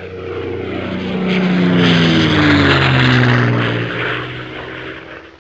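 A propeller aircraft passing by: its engine note slides down in pitch as it grows loud around the middle and then fades away.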